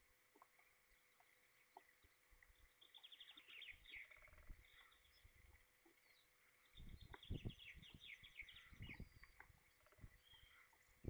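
Small songbirds singing in the surrounding forest: two quick, descending trilled phrases, with fainter high chirping between, over scattered low knocks and rumbles from rain and wind on the microphone.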